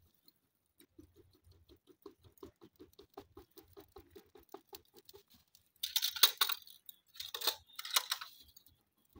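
A plastic plate fanned quickly over a charcoal jiko to get the coals burning: soft, even flapping strokes about four to five a second. Three short, louder rustling noises follow in the second half.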